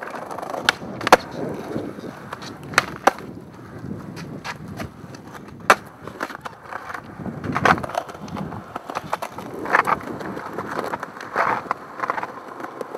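Skateboard wheels rolling over rough concrete, with several sharp clacks of the board's tail and trucks hitting the ground during tricks and landings.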